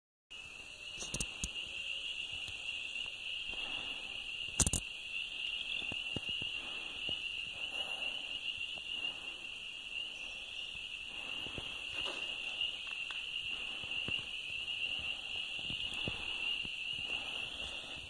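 Insects keeping up a steady, shrill, high-pitched drone throughout. Scattered footstep crunches on grit run beneath it, with one sharper knock about four and a half seconds in.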